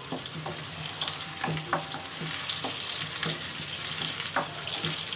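Sliced onions sizzling in hot oil in a karahi, with a spatula scraping and knocking against the pan in a steady run of light strokes as they are stirred.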